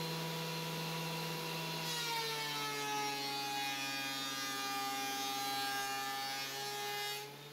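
Ridgid benchtop thickness planer running as a padauk board is fed through it. Its motor pitch drops about two seconds in as the cutterhead takes the cut and stays lower under load, then rises again near the end as the board clears.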